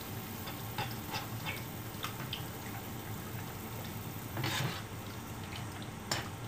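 Spoon clicking and scraping against a glass jar and a wok as seasoning paste is scooped into the pan, over a light frying sizzle and a steady low hum. A longer scrape about four and a half seconds in is the loudest sound, and a sharp click comes near the end.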